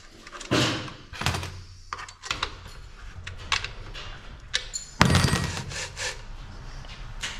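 Scattered knocks and thuds of objects being handled in a small room, with a louder rush of noise about five seconds in that lasts about a second.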